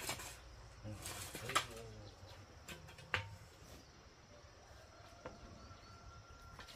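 A few scattered light knocks and taps.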